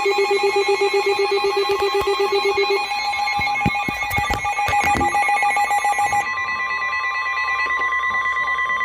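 Several emergency alert tones sounding over each other ahead of a tornado warning broadcast. A rapidly pulsing alarm tone stops about three seconds in, under steady alert tones from the weather radio and phones, with a brief flurry of clicks near the middle.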